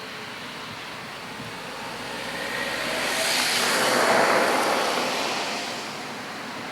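Farm machinery working in a field passes close by: a steady mechanical noise that grows louder to a peak about four seconds in, then fades away again.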